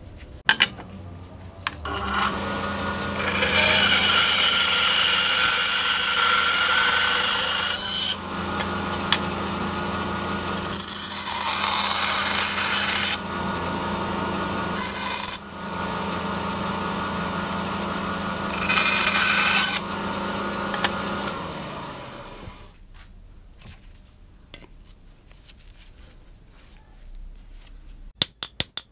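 Small benchtop power saw starts about two seconds in and runs with a steady hum. It grows louder and harsher in three stretches as the blade cuts into a wooden hammer handle, then switches off a little over twenty seconds in. A fast run of clicks starts near the end.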